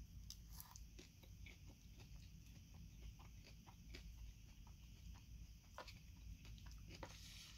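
Faint close-up chewing of a mouthful of leafy salad greens: irregular soft crunches and wet mouth clicks, with a short rustling hiss near the end.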